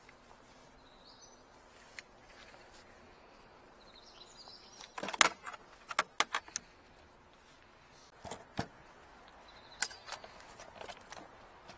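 Hard clicks and clacks of tools and cable being handled around an aluminium equipment case, the loudest cluster about five seconds in and more near the end. A bird chirps faintly a couple of times early on.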